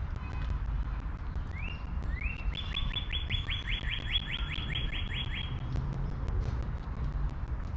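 A songbird sings a run of about a dozen quick rising whistles, some four a second, lasting about three seconds, over a steady low rumble.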